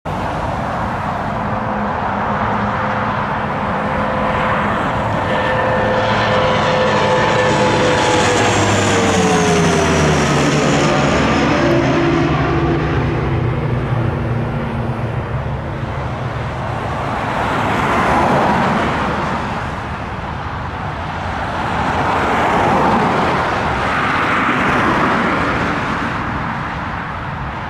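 Twin-engine turboprop aircraft passing low overhead on landing approach, its propeller and engine tones dropping in pitch together as it goes by about ten seconds in. Afterwards a steadier noise rises and falls a few times as it rolls out on the runway.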